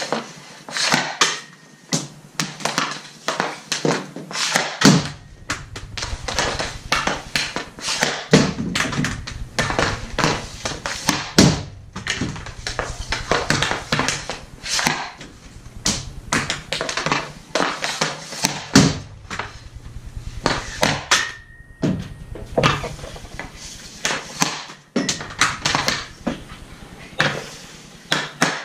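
Hockey pucks and sticks on a synthetic ice floor: a steady string of sharp taps and thunks as pucks are handled and shot, and pucks strike the boards and goal. Once, about two-thirds of the way through, there is a short ringing note.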